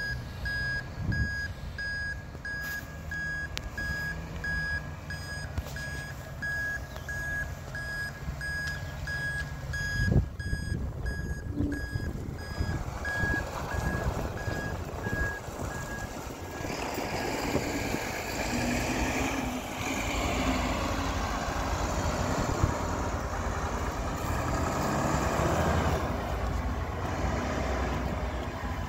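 Mack refuse truck with a Leach rear-loader body: its reversing alarm beeps steadily at one pitch over the idling diesel engine, with a single thump about a third of the way in. About halfway through, the beeping stops and louder, rougher engine and hydraulic machinery noise takes over.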